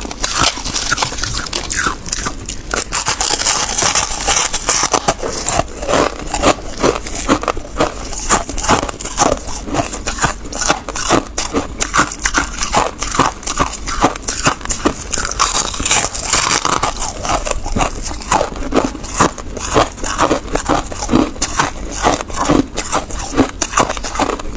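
Ice being bitten and chewed close to the microphone: a dense run of crisp crunches, several a second.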